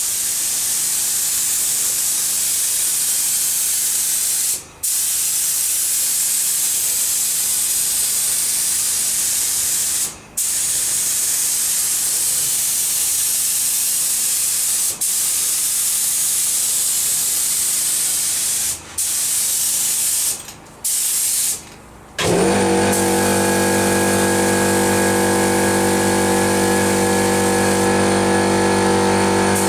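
Air-fed paint spray gun hissing steadily as a coat of paint goes on, broken by several brief pauses where the trigger is let go. About two-thirds of the way through, an air compressor's motor starts abruptly and runs steadily under the spray hiss, louder than the spray.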